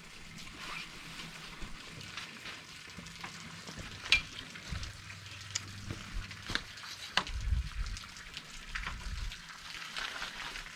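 Rooftop tent gear being handled for takedown: crinkly rustling of tent fabric with scattered clicks and knocks. The sharpest click comes about four seconds in, and a low bump follows around seven to nine seconds.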